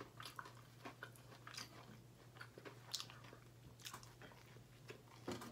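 Faint close-up eating sounds: Texas toast torn apart, bitten and chewed, heard as scattered short soft clicks, over a low steady hum.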